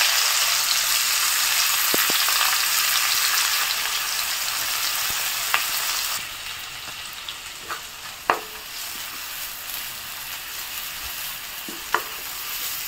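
Sliced onions sizzling in hot mustard oil in an iron kadai, the sizzle loudest at first and dropping sharply about six seconds in. A few short knocks of a wooden spatula stirring against the pan come in the second half.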